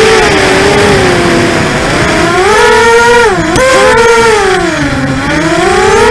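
ImmersionRC Vortex 250 Pro racing quadcopter's brushless motors and propellers whining, recorded on board. The pitch sinks and climbs with the throttle, dropping sharply and snapping back up about three and a half seconds in, then dipping again about five seconds in before rising near the end.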